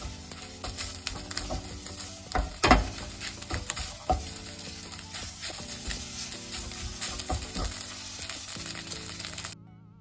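Eggs and rice sizzling as they are stir-fried in a Nitori Evercook frying pan, with frequent scrapes and knocks of stirring against the pan. Soft background music plays underneath. The frying cuts off suddenly just before the end.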